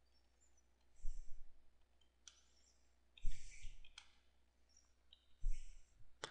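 Computer keyboard keys being typed in several short bursts of clicks.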